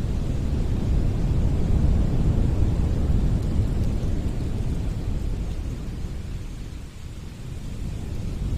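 Winter wind blowing in gusts, a low rumbling rush that eases off about seven seconds in and then picks up again.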